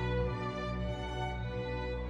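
Background music with long held notes, likely strings.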